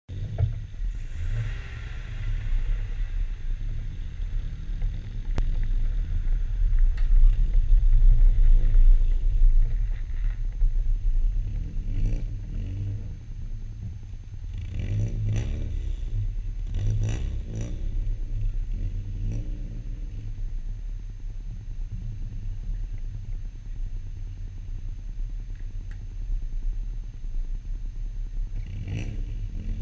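BMW 320 rally car's engine running at low revs with a heavy low rumble, blipped up and down a few times around the middle and again near the end.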